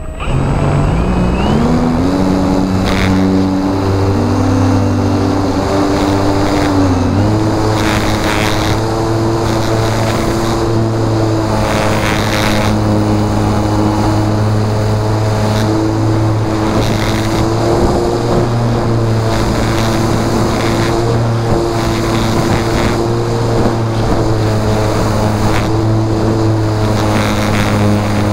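Art-Tech Spitfire V2 RC plane's electric motor and propeller, close to the mounted camera. It spins up with a rising whine over the first two seconds and wavers in pitch with throttle changes for a few seconds, then runs as a steady high drone. Gusts of wind noise hit the microphone every few seconds.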